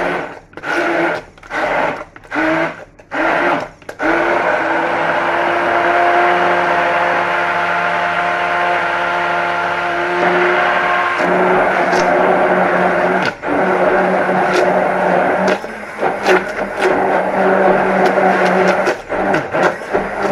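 Electric blender puréeing cooked onions and cooking liquid into soup. It is pulsed in short bursts for the first few seconds, then runs continuously with a steady motor hum, dips briefly about two-thirds of the way through, and goes choppy near the end.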